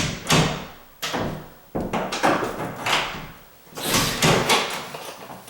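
A door being swung shut and opened again several times, its latch knocking and clacking against the strike plate.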